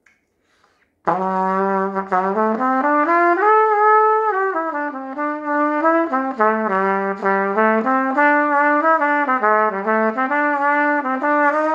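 Trumpet played through a Curry 70C mouthpiece, starting about a second in: a continuous phrase of notes that climbs to a held higher note, steps back down, and moves up and down in short notes.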